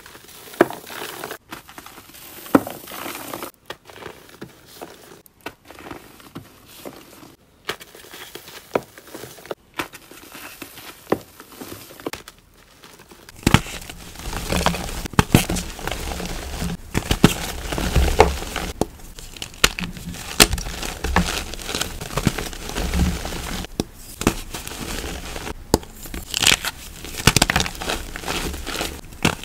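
Hands crushing blocks of gym chalk, the chalk crumbling with dense dry crackles and crunches. The crushing turns fuller and louder about halfway through.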